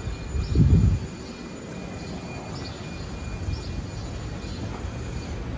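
City street ambience: a steady low traffic rumble, with a brief louder low rumble about half a second in, and a few faint high bird chirps now and then.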